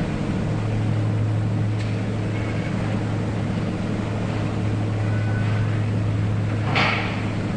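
Laboratory induction furnace running: a steady low hum over a constant rushing noise, with a short hissing burst about seven seconds in.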